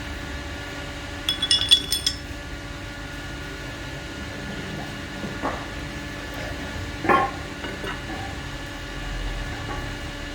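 A quick run of light, ringing metallic clinks about a second and a half in, like small metal parts knocking together. Two duller knocks follow later, over a faint steady hum.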